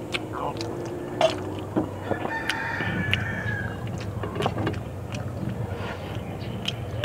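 A rooster crowing in the background about two and a half seconds in, over scattered small clicks of eating by hand and a steady low rumble.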